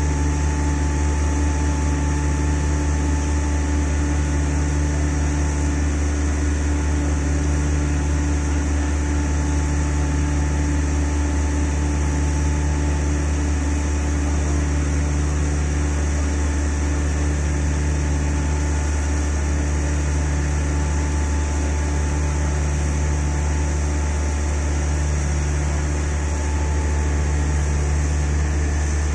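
Heavy construction machinery running at a constant speed: a loud, steady low drone with a few fixed tones above it, unchanging throughout.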